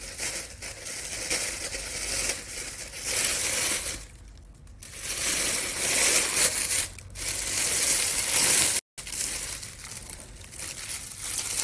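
Clear plastic bags crinkling and rustling as hands pull open the bag liners inside metal buckets of seafood. The rustling eases for about a second around four seconds in and breaks off abruptly for a moment near nine seconds.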